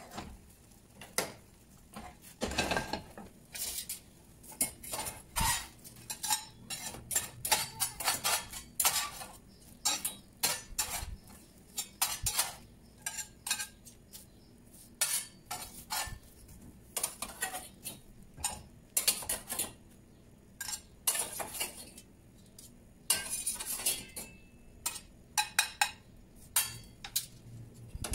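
Metal slotted spatulas clinking and scraping against a round steel griddle and a tray as charred onions, scallions and chiles are lifted off: many sharp clinks in irregular runs.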